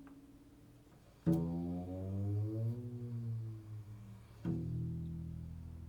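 Improvised low-pitched instrumental music: two deep notes struck about three seconds apart, each ringing on and slowly fading, the first bending in pitch as it sustains.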